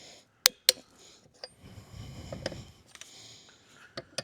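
Two sharp clicks in quick succession about half a second in, followed by a few softer scattered clicks and light handling noise.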